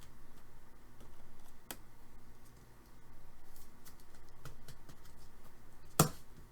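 Trading cards and card packs being handled: soft sliding and rustling with a few sharp clicks, the loudest one near the end.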